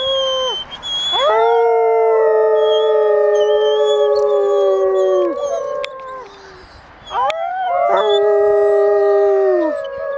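Female arctic wolf howling, two long drawn-out howls with a short break between them about six seconds in, with people's imitation howls mixed in to coax her on.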